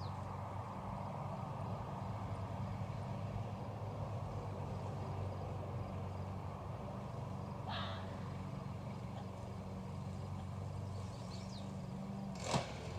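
Steady drone of a lawnmower engine running. It is broken twice by a short, sharp animal call, once about eight seconds in and again, louder, near the end.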